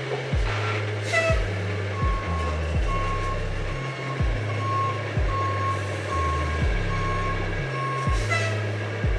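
Dump truck's backup alarm beeping steadily while the truck reverses, about one and a half beeps a second, starting about two seconds in and stopping near the end. A low pulsing sound with a regular beat runs underneath.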